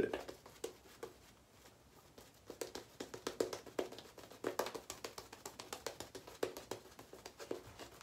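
Badger-hair shaving brush working lather on a face: a quick run of soft, wet clicks and swishes, several a second, starting about two seconds in.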